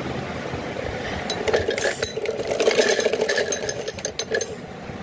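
Domestic sewing machine stitching fabric, its needle and handwheel running with a rapid clicking clatter. It picks up about a second and a half in and eases off near the end.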